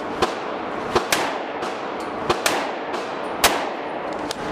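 Gunshots echoing in an indoor shooting range: about six sharp cracks at uneven intervals over a steady background hiss, two of them coming as quick pairs.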